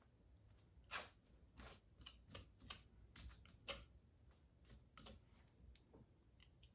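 Faint, irregular taps and short scrapes of a palette knife dabbing thick acrylic texture paste onto a stretched canvas. The sharpest clicks come about a second in and again just before four seconds.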